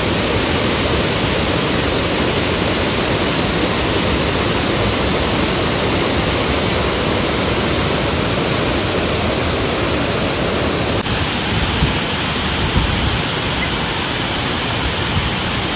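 Waterfall roar: a loud, steady rushing of falling water with no break, its tone shifting slightly about eleven seconds in.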